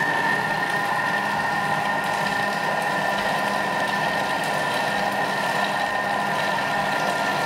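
Thermomix TM6 motor running steadily, an even whine as its blade mixes cream cheese filling in the bowl.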